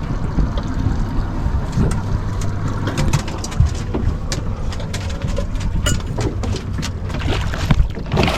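Boat at sea: a steady low engine hum under wind and water noise, with scattered clicks and knocks on the hull and deck.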